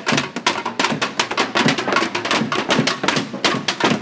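Fast, dense drumming by children beating improvised drums made from plastic tubs and other containers, many hits a second.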